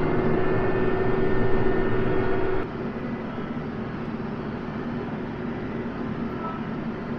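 TYM 574 Hydro C compact tractor's diesel engine running steadily, heard from inside the cab. About two and a half seconds in, the sound drops in level and its steady pitch changes.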